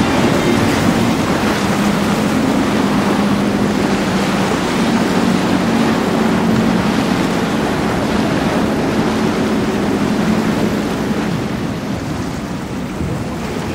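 Center console boat engines running, a steady drone over rushing water and waves, with wind on the microphone. The sound eases off near the end.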